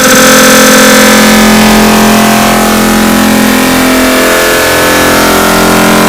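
Sneeze sound effects digitally sped up and stacked again and again until they merge into a loud, dense drone of many steady held tones with no sneeze left recognisable. One low tone fades out about four and a half seconds in.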